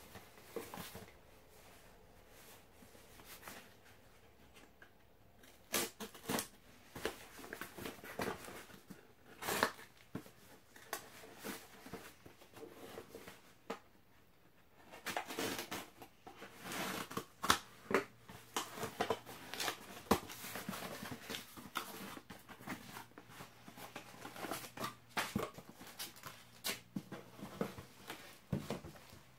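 Cardboard shipping box being opened and handled by hand: flaps pulled back, card scraping and rustling, with scattered taps and knocks. Only faint handling for the first few seconds, then busy and irregular.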